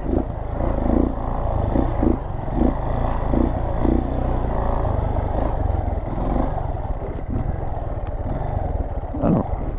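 Dirt bike engine running steadily under the rider as the bike travels over a rough forest trail.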